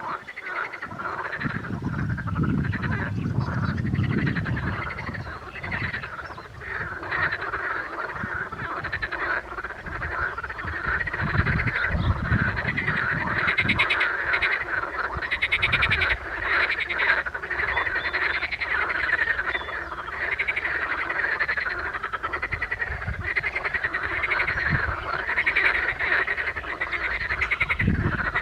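Chorus of edible frogs (green frogs, Pelophylax kl. esculentus), many calling at once in overlapping, rapidly pulsed croaks that carry on without a break.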